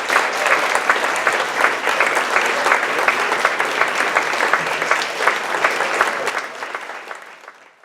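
Audience applauding with dense clapping, dying away near the end.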